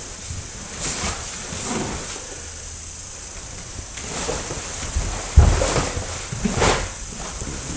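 Karate strikes and a kick: the cotton gi swishing and snapping with each technique, bare feet thudding and sliding on a wooden floor. The loudest is a heavy foot thud about five and a half seconds in.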